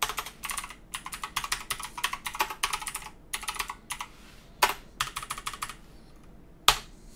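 Typing on a computer keyboard: quick runs of key clicks with short pauses, and a few louder single keystrokes, one near the middle and one near the end.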